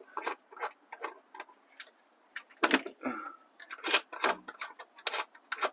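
Irregular small metallic clicks and taps of a loosened nut being worked off the mounting stud of an old incandescent turn signal lamp.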